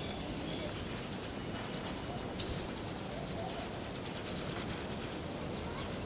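Steady low background rumble of ambient noise, with one sharp click about two and a half seconds in.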